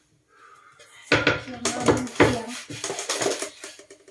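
Groceries being handled on a kitchen counter: about a second in, a run of sharp knocks and clatter as packages are moved and set down, fading out near the end.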